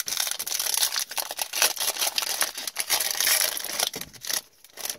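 Foil hockey card pack being torn open and crinkled by hand: a dense, loud crackle of wrapper that dies away about four and a half seconds in.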